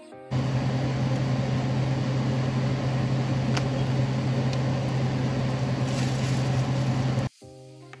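Kitchen exhaust fan running steadily: a low hum under an even rush of air, with a couple of faint ticks. It starts just after the beginning and cuts off suddenly about a second before the end.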